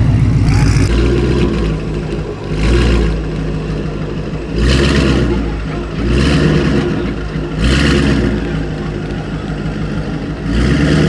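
Twin-turbo 2024 Ford Mustang GT's 5.0 V8 idling and revved in short throttle blips, about one every one and a half to two seconds, each blip carrying a brief hiss.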